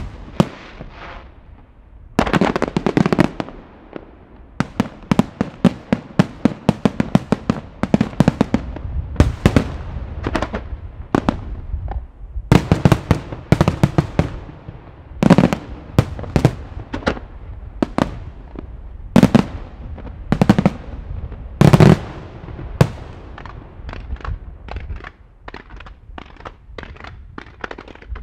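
Fireworks display: aerial shells bursting in rapid volleys of sharp bangs with echo, the loudest in clusters a few seconds apart. Near the end it turns into a quick string of lighter pops as low comets fire.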